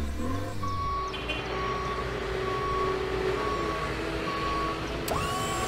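A truck's reversing alarm beeping about once a second over the truck's engine running, as the truck backs into position.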